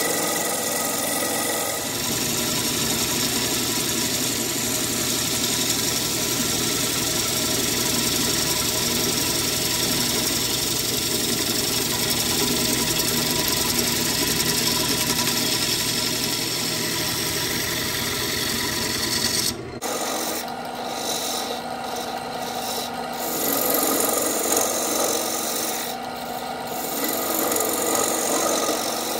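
A gouge cutting into a spinning ambrosia maple bowl blank on a wood lathe: a continuous rough shearing of wood over the lathe motor's steady hum. The sound changes abruptly about 20 seconds in, after which the cutting rises and falls as the tool moves across the blank.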